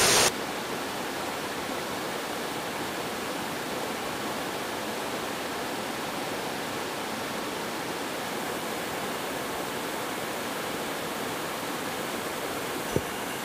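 Mountain stream water rushing steadily, an even hiss of running water that drops to a lower level just after the start. A single short tick sounds near the end.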